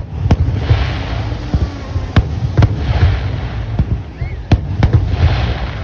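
Consumer aerial fireworks going off: about five sharp bangs, several coming in close pairs, each followed by a crackling hiss as the golden stars burst.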